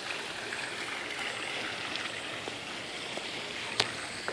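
Pool water feature splashing into a swimming pool, a steady rush of falling water. A single sharp click sounds near the end.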